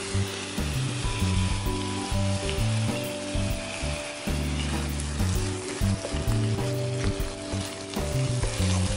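Minced pork and chopped onion sizzling steadily in a nonstick frying pan, with sauces just added, and a wooden spatula stirring through the mix near the end. Soft background music with held low notes plays underneath.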